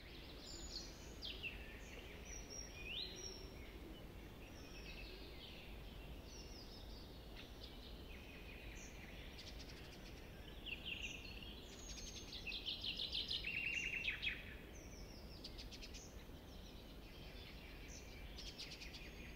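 Several birds chirping and singing over a faint, low outdoor rumble; a rapid trill past the middle is the loudest call.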